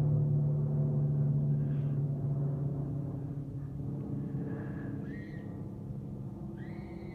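Aircraft engine drone, a steady pitched hum that slowly fades as the plane moves away. Near the end a high, steady whistling tone comes in.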